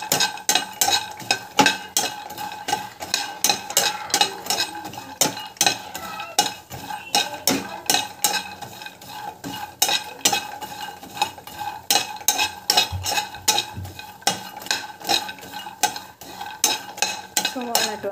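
A spatula scraping and knocking against a nonstick kadai in quick repeated strokes, several a second, as walnut pieces are stirred and roasted.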